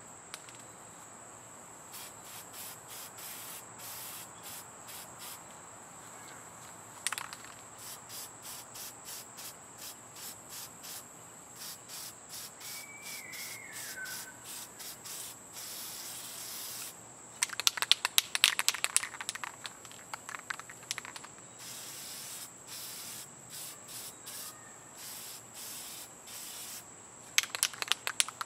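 Aerosol can of Rust-Oleum camo spray paint hissing in bursts as khaki paint is sprayed onto a rifle stock. Partway through and again near the end there is a fast loud clatter, the can being shaken with its mixing ball rattling. Insects chirp in an even rhythm throughout, with a brief bird call about halfway through.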